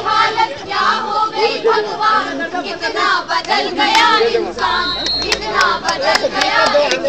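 A group of young voices singing together, with sharp rhythmic beats joining in about five seconds in.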